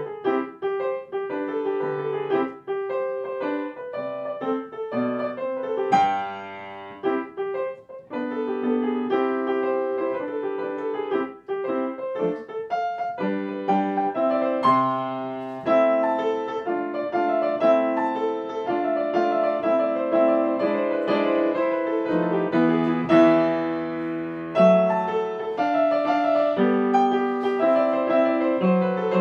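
Solo piano music: a melody played over chords.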